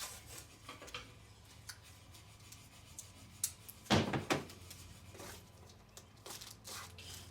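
Handling noise from bagging loose tire lug nuts: rubbing and light clicks as a plastic bag and parts are handled, with a louder rustle about four seconds in, over a steady low hum.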